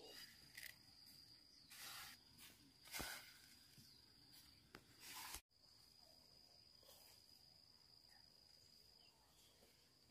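Faint insect trilling on one steady high note, with rustling and brushing noises over the first five seconds. The sound cuts out abruptly about halfway through and the trilling then carries on alone.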